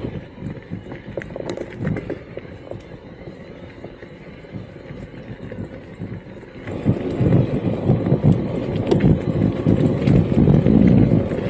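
Riding noise of an electric mountain bike on a trail: a low rumble with scattered clicks and rattles, getting much louder about seven seconds in.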